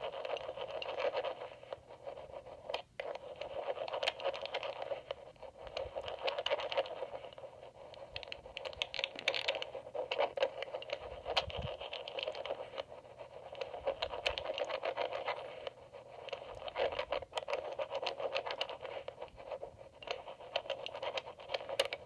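Lock pick scraping and ticking against rotor 1 inside an EVVA MCS magnetic lock, heard through an amplifier: a continuous scratchy rasp sprinkled with many small clicks as the rotor is worked toward its set position.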